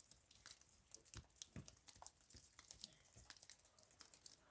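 Near silence with faint, scattered small clicks and rustles, about one or two a second.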